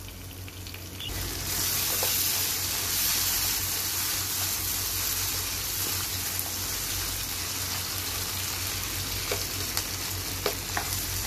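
Boneless beef pieces frying with a knob of butter in a non-stick pan over high heat, sizzling steadily as a spatula stirs them. The sizzle grows louder about a second in, and a few light spatula clicks against the pan come near the end.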